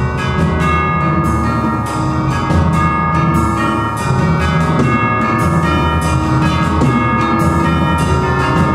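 Percussion quartet playing: ringing pitched mallet-percussion chords and melodic figures over drums, with many sustained ringing tones.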